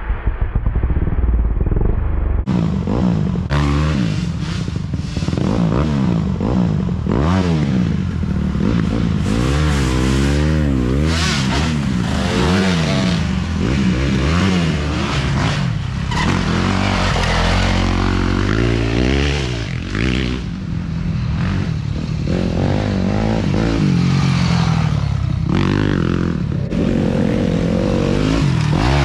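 Dirt bike engines revving on and off the throttle, pitch climbing and dropping over and over, with several bikes running at once.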